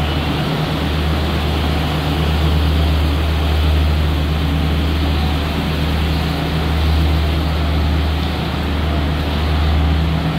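Diesel train idling, a steady low drone with a constant hum that does not change.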